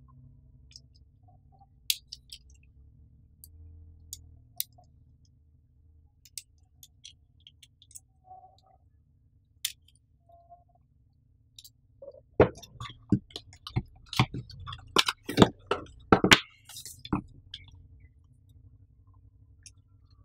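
Light clicks and taps from handling a small tabletop tripod with a metal ball head. About twelve seconds in, a louder run of rustling, crackling and knocks lasting several seconds, from cardboard packaging and papers being handled.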